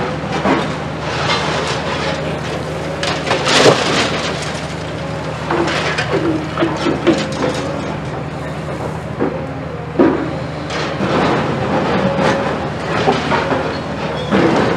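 Demolition excavator's diesel engine running steadily under load, with irregular crunching, cracking and clattering of concrete and brick as the demolition jaws break the building. The sharpest cracks come about four and about ten seconds in.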